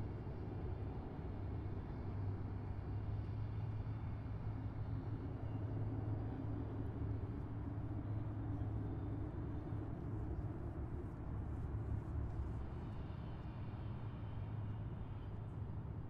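Distant highway traffic: a continuous low rumble of vehicles, steady throughout.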